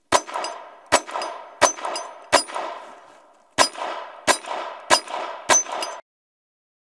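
Eight shots from a Ruger LCP II .22 LR rimfire pistol, fired in two strings of four, about 0.7 s apart, with a pause of about a second between the strings. Each sharp crack rings and echoes out, and the last one's echo cuts off suddenly.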